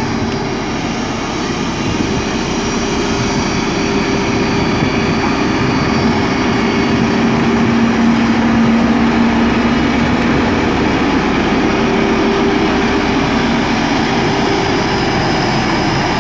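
JCB 3DX backhoe loader's diesel engine running steadily at working revs, swelling a little through the middle.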